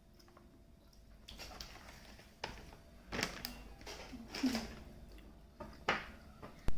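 Snacks and their packaging being handled: a series of short crinkles and taps, with a sharp click near the end.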